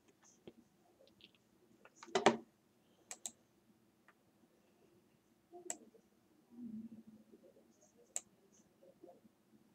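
Faint scattered clicks and taps, with a louder cluster of clicks about two seconds in and a few single clicks later.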